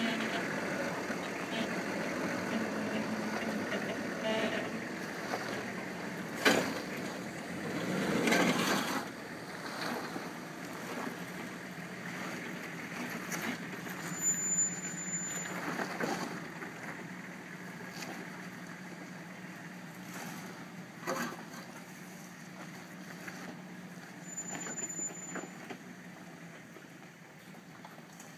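Nissan Patrol 4x4's engine running at low revs as the vehicle crawls down a rutted dirt track, growing fainter as it moves away. A couple of sharp knocks and a louder rumble of tyres on the ruts stand out along the way.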